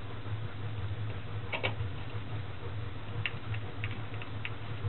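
Light clicks and taps of a cable connector being handled against the rear jacks of a VCR: a quick double click about a second and a half in, then a scatter of small clicks near the end, over a low steady hum.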